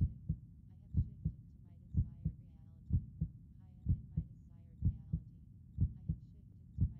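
Heartbeat sound effect: steady paired lub-dub thumps, about one pair a second.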